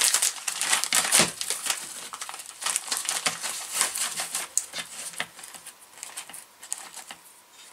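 Clear plastic bag crinkling and rustling as it is opened and flat wooden kit parts are slid out of it, with many small irregular crackles that thin out toward the end.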